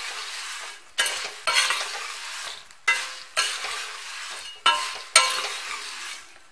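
Steel ladle stirring and tossing puffed rice in a kadai. It comes in repeated sweeps, each opening with a sharp metal scrape and fading into a dry rustle of the grains. The rice is being roasted on low heat until it turns crisp.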